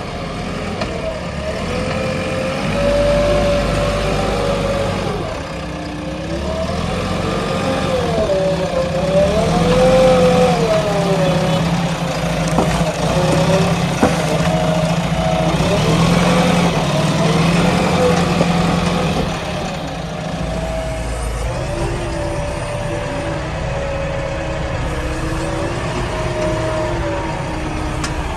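JCB 3DX Xpert backhoe loader's diesel engine working, its note rising and falling again and again as the load changes.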